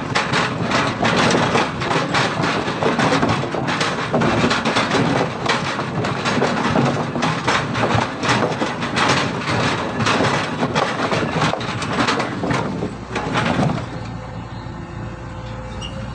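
An excavator grapple grinding and twisting a bundle of eucalyptus logs against a spiked steel debarking rack: bark tearing with dense crackling and cracking of wood over the running excavator engine. About fourteen seconds in, the grinding stops and only the engine and a steady hydraulic hum remain as the stripped logs are lifted.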